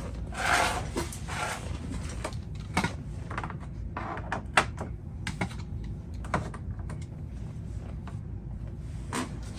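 Irregular light clicks and taps of hard tools and wood being handled, with one sharper click a little past four seconds in.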